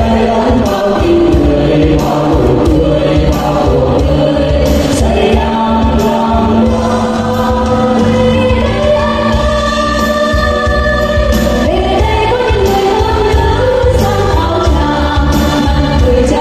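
A mixed choir of women and men singing together into microphones over amplified backing music, with long held notes.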